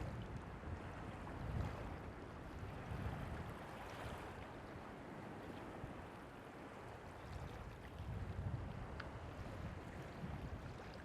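Wind buffeting the microphone in low, gusty rumbles over a steady wash of surf on the beach.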